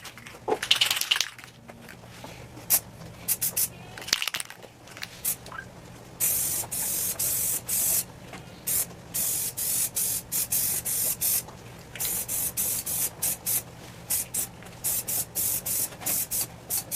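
Aerosol spray-paint can spraying a first coat onto a bike frame in short hissing bursts, with one longer pass of about two seconds about six seconds in.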